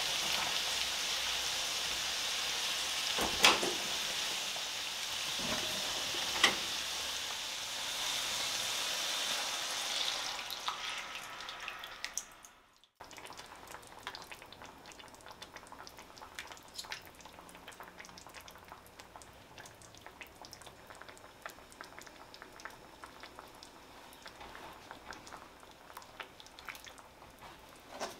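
Chicken sizzling as it fries in a stainless steel skillet, a steady hiss broken by two sharp knocks. About halfway it fades out, and the rest is the much quieter crackle and pop of tomato sauce simmering around the chicken.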